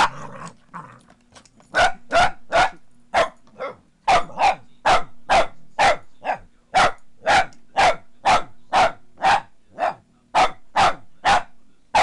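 Boston Terrier barking over and over at a running foot massager, sharp barks coming two to three a second in runs after a short lull at the start. A faint low steady hum from the massager's motor runs underneath.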